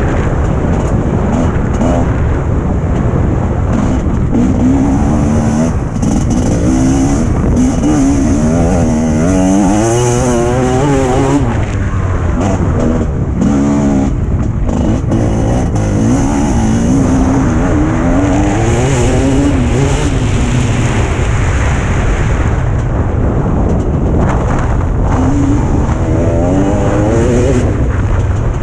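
Motocross bike engine running hard around a track, its pitch rising and falling again and again as the throttle is opened and closed through corners and straights, with heavy wind rushing over the camera microphone.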